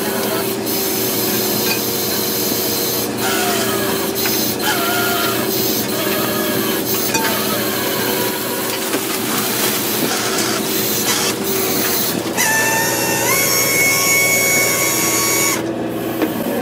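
Fishing-boat machinery running with a steady hum as a gillnet with floats is hauled aboard, the net scraping and rubbing over the boat's side. About twelve seconds in, a higher whine starts, steps up in pitch, and cuts off shortly before the end.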